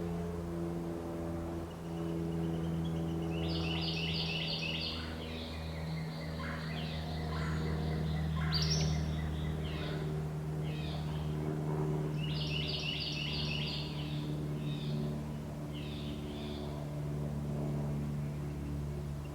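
Birds singing, with rapid trills about 4 seconds in and again near 13 seconds and scattered chirps between, over a steady low hum.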